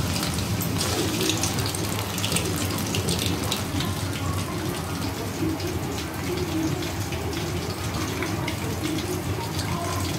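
Batter-coated Nendran banana slices deep-frying in hot oil: a steady sizzle with dense fine crackling from the bubbling oil. The oil is still bubbling vigorously, the sign that the fritters are still cooking.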